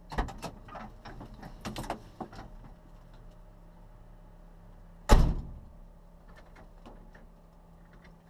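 Rally car's driver door and cockpit: clicks and knocks as the driver gets out, then the door slams shut about five seconds in. A low steady hum runs underneath.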